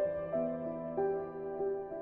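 Soft instrumental background music: a slow melody of held keyboard-like notes, a new note about every half second.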